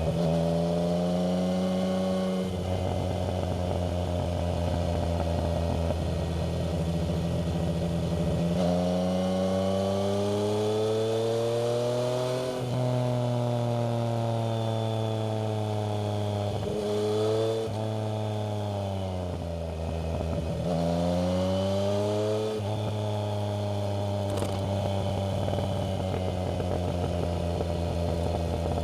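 Yamaha MT-09's three-cylinder engine through a Black Widow aftermarket exhaust under way. It runs steadily, then climbs in revs for several seconds and changes gear. Later it drops off, picks up again with another shift, and settles back to a steady cruise.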